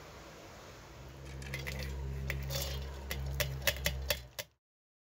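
Soaked urad dal being tipped from a steel bowl into a steel mixer-grinder jar, the wet grains pattering and clicking against the metal over a low steady hum. The clicks come thickest and loudest near the end, then the sound cuts off abruptly.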